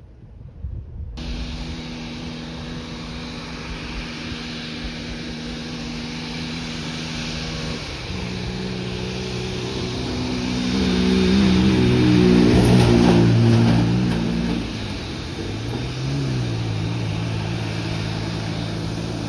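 Boeing 787 Dreamliner's jet engines running at taxi power as the airliner rolls past close by: a steady hum of several tones that shifts in pitch and grows loudest about two-thirds of the way through.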